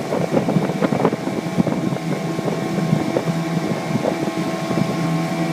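Mariner 15 outboard motor running at a steady speed, pushing a jon boat along, with many short irregular knocks over it.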